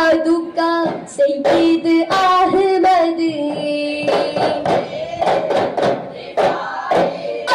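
Dafmuttu performance: voices singing a devotional song with held notes, accompanied by daf frame drums struck by hand in rhythm.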